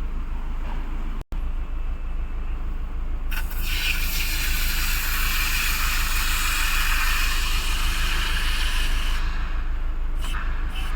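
A pressurised spray hisses in one long burst of about six seconds, starting a few seconds in, then in a few short spurts near the end. A steady low hum runs underneath.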